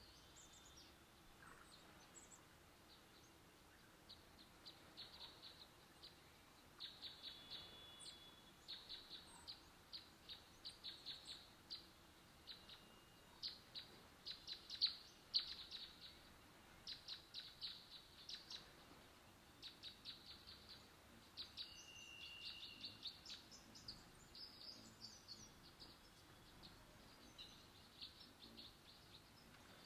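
Small songbirds chirping in quick runs of high, rapid chips that repeat over and over, with a couple of short whistled notes between them.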